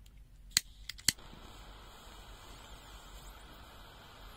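Gas lighter or torch clicked twice, about half a second apart, then a faint steady hiss of gas burning on from the second click: a flame lit to heat a thermocouple probe.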